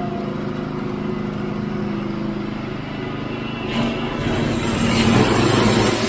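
Norwood HD36 portable band sawmill's engine running steadily. About four seconds in, a louder rushing noise builds up over it.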